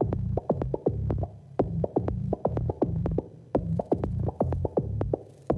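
Electronic dance music starting up: a throbbing bass pulse under fast, sharp clicking percussion hits.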